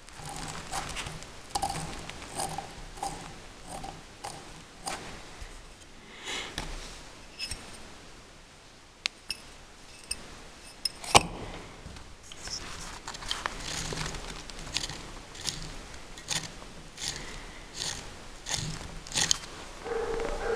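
Handling of a lathe's cast-metal limit switch and its cover by hand: scattered small clicks and scrapes, with one sharper click about eleven seconds in.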